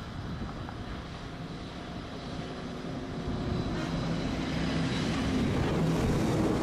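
Jet engines of an Airbus A330 on final approach, a steady rumble with a low hum that grows steadily louder as the airliner comes closer.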